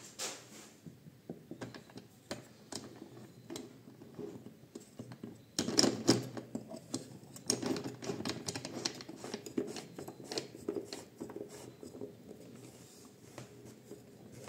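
Irregular clicks, knocks and scrapes of a square wooden blank being set between the points of a Parkside PDM 600 C3 bench wood lathe and clamped, with the motor not running. The loudest knocks come in a cluster about six seconds in.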